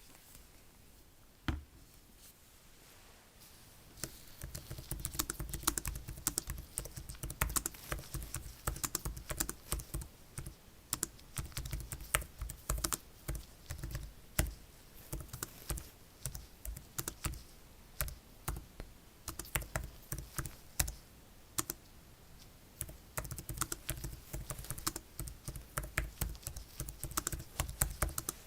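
Rapid, irregular tapping and clicking like typing, starting about four seconds in.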